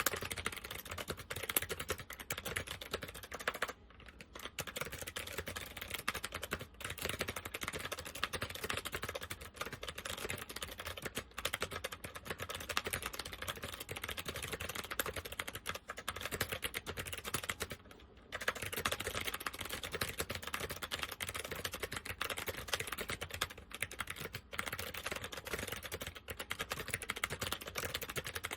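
Fast continuous typing on a mechanical keyboard with SMK 2nd-generation clicky switches, dense clicking keystrokes with brief pauses about 4 and 18 seconds in. The switches are worn and uncleaned.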